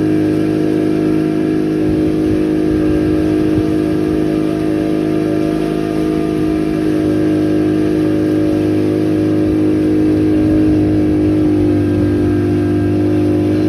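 An engine running steadily at constant speed, a continuous droning hum.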